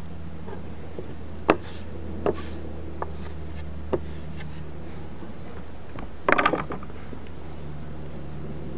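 Wooden stir stick tapping and scraping while two-part wood filler is worked into a rotted railing end: a few sharp taps, the loudest about a second and a half in, over a steady low hum. A short pitched sound comes about six seconds in.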